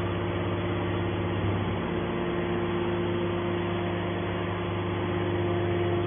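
Hydraulic scrap-metal baler's pump and motor running, a steady hum with a constant whine, as the hydraulic cylinder lifts the press's top lid open. The whine grows a little stronger near the end.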